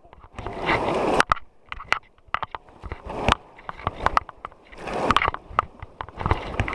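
River water splashing and sloshing against a raft in rapids, surging twice, with scattered sharp knocks and clicks.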